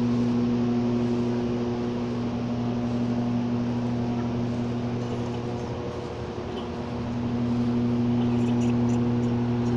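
A steady low electrical hum with several layered pitches, thinning out briefly about six seconds in, over a constant background rush.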